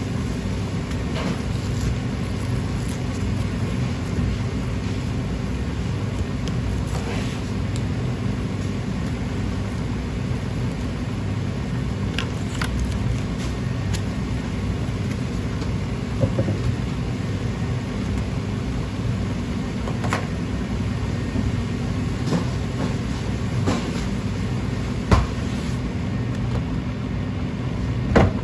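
Steady low machinery hum of a commercial kitchen, with faint taps and crinkles of cling film as a wrapped tuna block is rolled and pressed on a plastic cutting board. Two sharper knocks near the end.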